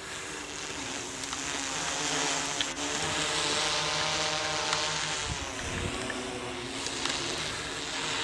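Octocopter drone hovering overhead: the steady buzzing hum of its motors and propellers, its pitch drifting slightly as it holds position, with a brief low rumble about five seconds in.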